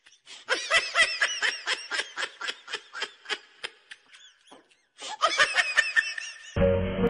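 A person laughing hard in rapid, high-pitched ha-ha bursts, breaking off for a moment about four and a half seconds in and then starting again. Music cuts in near the end.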